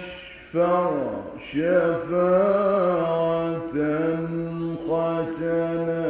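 A man reciting the Quran in the melodic mujawwad style, holding long ornamented notes in unbroken phrases, with a short breath about half a second in.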